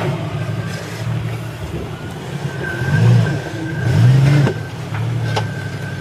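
An off-road 4x4's engine running and revved in two short blips, about three and four seconds in, while crawling. A couple of sharp knocks come near the end.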